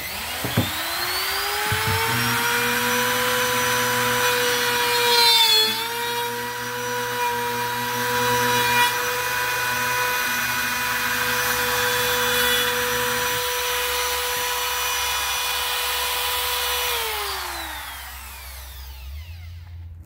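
Handheld electric router with a straight bit spinning up to a steady high whine and cutting a groove into a chest freezer's plastic top trim. Its pitch dips briefly about five seconds in, the cutting noise stops around thirteen seconds, and the motor winds down near the end.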